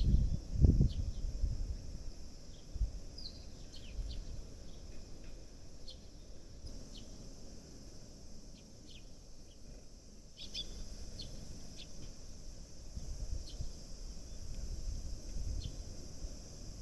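Sparrows chirping: short, scattered single chirps over a steady high hiss, with a couple of low rumbles in the first second.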